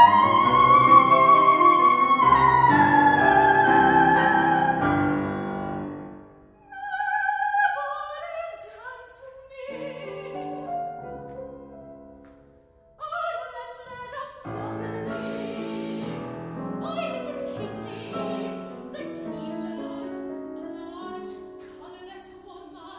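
Female classical singer performing an art song with grand piano accompaniment: a loud, long high note with vibrato that slides down and ends about six seconds in, then softer sung phrases over the piano, with a brief pause about twelve seconds in.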